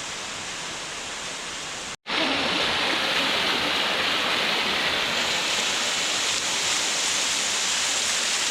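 Waterfall rushing steadily. About two seconds in the sound cuts out for an instant and comes back louder.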